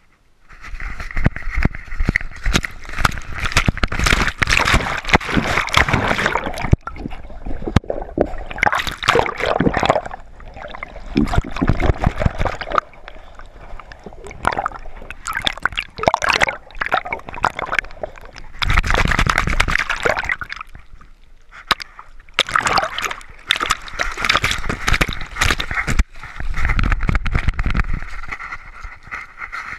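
Sea water splashing and sloshing around a dog's collar-mounted GoPro as a Labrador runs and swims through shallow water, in irregular surges with quieter stretches, one of them while the camera is under water.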